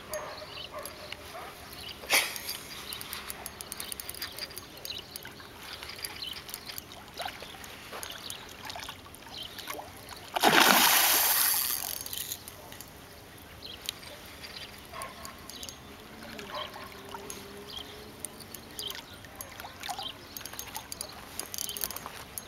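A hooked pike thrashing at the water's surface, with one loud splash lasting about two seconds about ten seconds in and smaller splashes and water noises around it.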